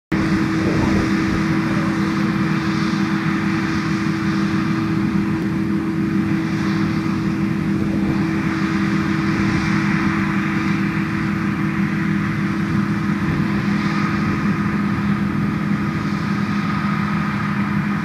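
John Deere combine harvester running steadily in the field: a loud, constant machine drone with a steady low hum.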